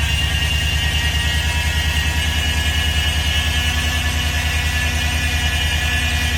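Cadillac Escalade engine idling steadily with an even low pulse, heard close to the engine.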